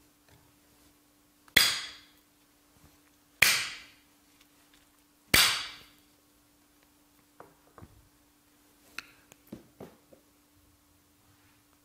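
Jukbi, a split-bamboo clapper, struck three times about two seconds apart, each a sharp clack that rings briefly: the signal that a meditation sitting begins. A few softer knocks and clicks follow, over a faint steady hum.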